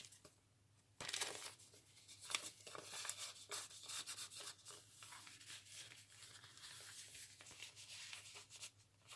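Paper rustling and crackling as the pages and tucked-in cards of a handmade junk journal are handled. After a brief pause at the start, a run of faint, quick crackles begins about a second in.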